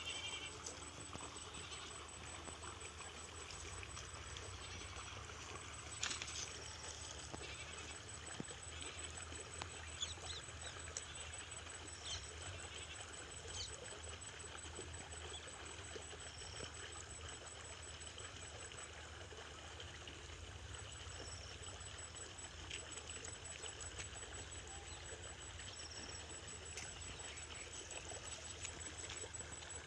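Outdoor waterside ambience: a steady low rumble of wind on the microphone under a faint trickle of water, with occasional short high chirps and a few sharp clicks.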